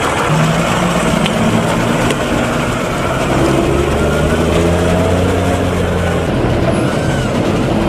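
Fendt Vario tractor's diesel engine running as it pulls a heavy tipping trailer away, the engine note rising about three seconds in as it speeds up.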